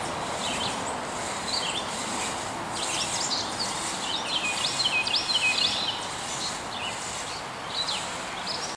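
Two-man crosscut felling saw rasping back and forth through a large sycamore trunk, with songbirds chirping throughout.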